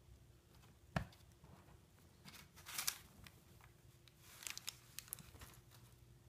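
A cat nosing and pawing at crinkly snack-bag packets, giving short bursts of crinkling about two and a half seconds in and again from about four seconds. A single sharp tap sounds about a second in.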